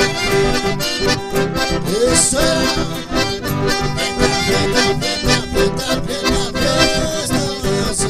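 Live folk music led by two button accordions playing together over a strummed acoustic guitar, with a steady beat and a man's voice singing in places.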